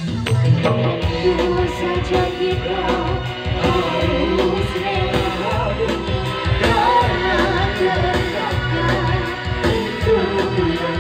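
Live band music: a woman singing into a microphone over an electronic keyboard, electric guitar and a steady beat, played through speakers. The voice comes in about a second in.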